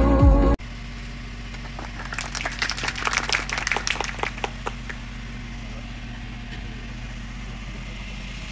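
Music cuts off abruptly about half a second in. Then a few people clap for about three seconds over a steady low hum.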